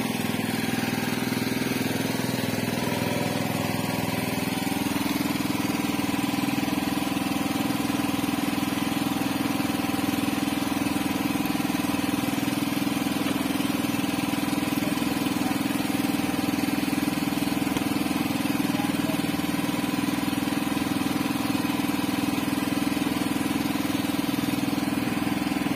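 A small engine aboard a fishing boat running steadily, its even hum unchanged throughout.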